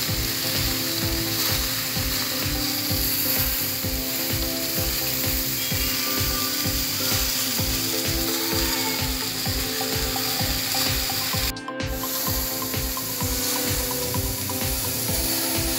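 Marinated chicken pieces sizzling on a grill over a gas stove flame, under a steady low beat about three times a second. The sound cuts out for a moment about twelve seconds in.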